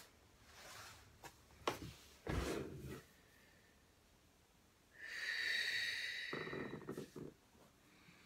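A person breathing deeply during a yoga flow: short breaths and a soft thump of movement in the first few seconds, then one long, loud breath through the nose about five seconds in, hissing with a faint whistle.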